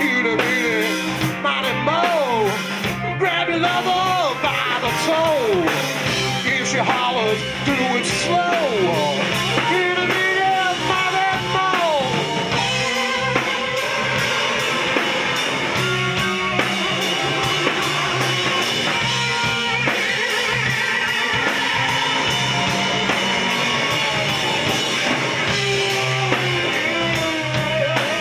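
Live rock band playing loudly: distorted electric guitars, bass and drum kit, with a singer's voice over them. Sliding, bending notes stand out in the first several seconds.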